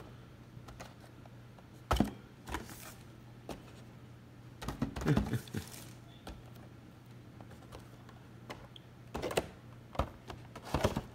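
Cardboard toy boxes with plastic windows being handled and set down on a shelf: scattered light taps and knocks, with a busier patch of handling about five seconds in and a few more taps near the end, over a faint steady low hum.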